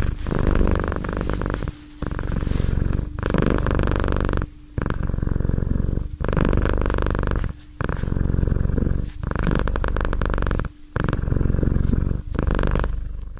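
Domestic cat purring loudly and steadily while being stroked. The purr comes in even phrases of about a second and a half, each broken by a brief pause for breath.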